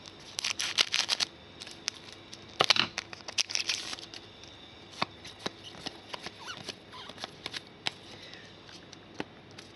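A Panini Donruss Soccer 2015 foil pack wrapper and its trading cards being handled: two bursts of crinkly rustling in the first four seconds, then scattered light clicks and taps as cards are slid and set down.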